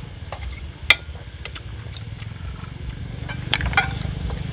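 Spoons and forks clinking against plates and bowls during a meal, with a sharp clink about a second in and a few more near the end, over a steady low hum.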